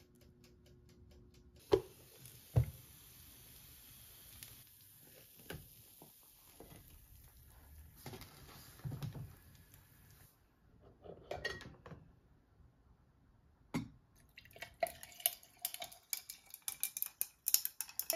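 Tableware handled on a counter: two sharp knocks about two seconds in, then scattered light clinks. Over the last few seconds comes a dense run of clinks and cracks as coffee is poured from a glass carafe over ice cubes in a glass.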